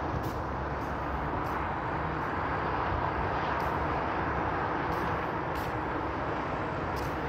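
Steady wash of distant road traffic, tyres and engines on a multi-lane highway below, with no single vehicle standing out.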